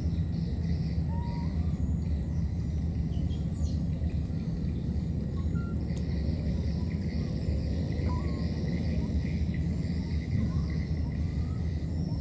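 Outdoor ambience: a steady low rumble with a constant high insect drone, and a few brief, scattered chirps.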